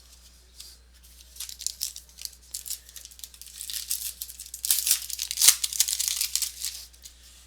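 A pack of trading cards being torn open, the wrapper crinkling and tearing in a run of crackles that is loudest about four to six seconds in.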